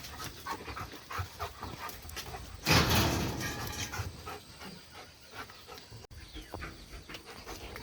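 Close-up animal sounds: low breathing and small noises, with one loud noisy burst lasting about half a second around three seconds in.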